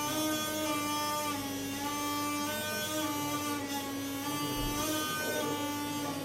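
Magudi (pungi, snake charmer's double reed pipe) played continuously with circular breathing, a buzzy reed tone stepping back and forth between a few close notes of the snake-charmer tune. Only one pipe sounds and the drone is missing, which the player cannot explain.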